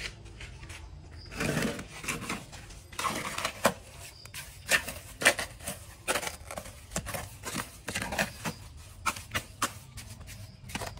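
Irregular clicks, knocks and short scrapes of hand work with tools and building materials, with a few louder knocks near the middle.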